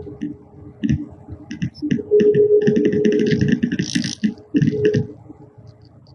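Ride noise inside a moving road vehicle: a steady hum with a held tone, and a run of quick, light clicks and rattles for a few seconds in the middle.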